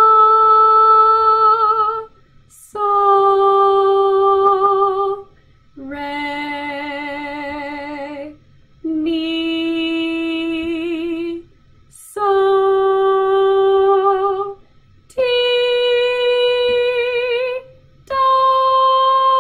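A woman singing solfege syllables unaccompanied, slowly, one held note at a time with vibrato: la, so, re, mi, so, ti, then high do. Each note lasts about two seconds, with a short breath between notes. This is a sight-singing melody in C major.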